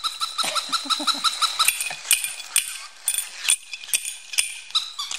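Battery-operated toy monkey clashing its small metal cymbals, about two clashes a second, with a fast pulsing beep over the first second and a half.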